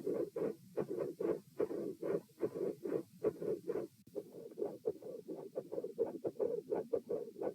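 Human heart sounds recorded at the chest: a fast, regular run of muffled thumps, about three to four a second, with a brief break about four seconds in.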